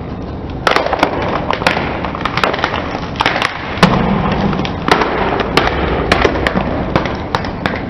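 Cardboard box of crunchy strawberry-chocolate snacks being crushed under a slowly rolling car tyre: a long run of sharp, irregular crackles and pops over the car's steady low rumble.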